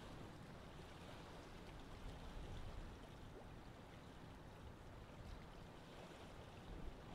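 Faint, steady outdoor sea ambience: an even hiss of water over a low rumble.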